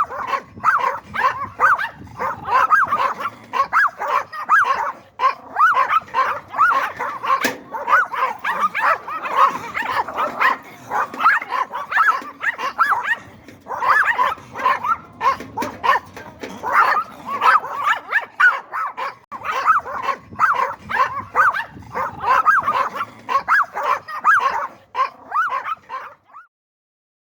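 Yorkshire terrier barking in a long, rapid run of short, high-pitched yaps, several a second with a few brief lulls, stopping near the end.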